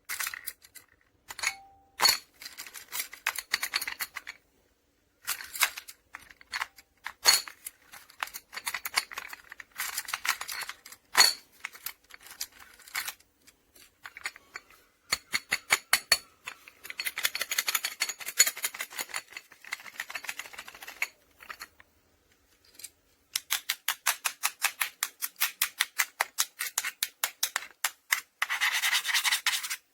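Metal file rasping across a U-lock's hardened-steel shackle in short scraping strokes, in uneven bursts with a quick run of about five strokes a second near the end. The file bites in slightly, a sign the shackle is not fully hardened.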